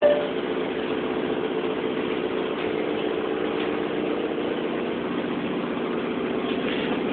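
A motor running steadily at an even speed: a low, unchanging drone with a fine rapid pulsing.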